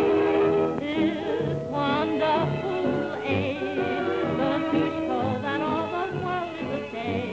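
Old-time recording of a singing voice with wide vibrato over band accompaniment, the sound thin with little top end.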